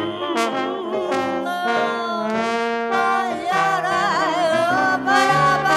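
Trombone playing a melodic solo line with vibrato over piano accompaniment, in a jazz-style chamber arrangement.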